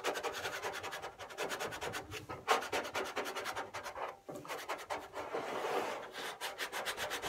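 Plastic squeegee rubbed back and forth over transfer tape to press a vinyl decal down onto the surface: a quick, repeated scratchy scraping that stops briefly a few times.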